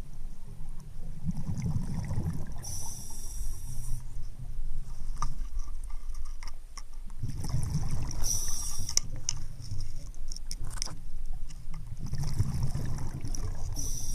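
Underwater sound of a diver's breathing: a slow cycle about every five seconds, each a low rumble followed by a short high hiss, with scattered small clicks.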